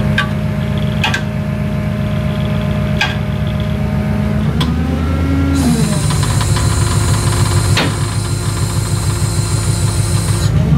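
Tow truck's engine running steadily, with a few sharp metallic clinks in the first few seconds. About halfway the engine note rises briefly and a steady hiss joins, stopping just before the end.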